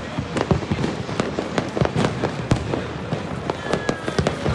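Fireworks and firecrackers going off in a dense, irregular barrage: sharp bangs of varying loudness, several a second, over continuous crackling.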